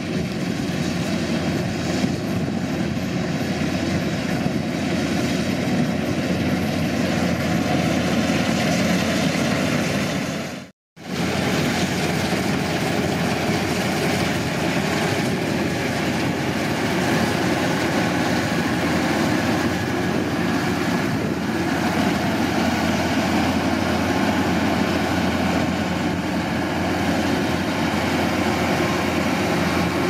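Tracked rice combine harvester running steadily while cutting and threshing, its engine and machinery a continuous drone. The sound cuts out for a moment about eleven seconds in.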